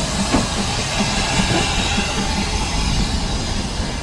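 Narrow-gauge steam locomotive Prince hissing steam as it moves off slowly, hauling a short train of vintage carriages past, with the wheels rolling over the rails.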